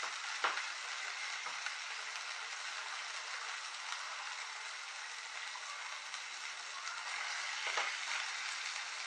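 Salmon pieces frying in a pan with a steady sizzle. A fork knocks against the pan a few times as the pieces are turned, most clearly about half a second in and near the end.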